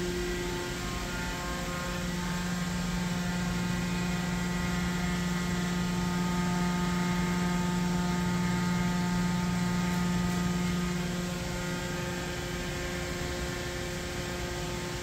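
Steady machine hum from a DMG Mori NTX 1000 CNC mill-turn centre, made of several tones; the lowest and strongest tone fades out about eleven seconds in.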